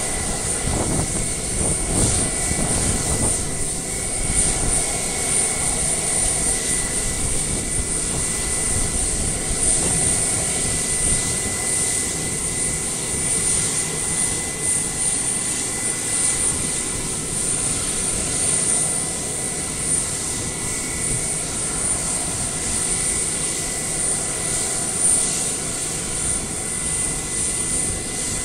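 Embraer KC-390's IAE V2500 turbofan engines running steadily: a constant rumble with a high, even whine over it, neither building nor fading.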